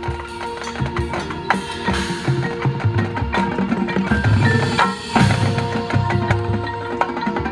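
High school marching band playing its field show: held wind chords over drums and percussion strikes. The low brass swells in the middle of the passage.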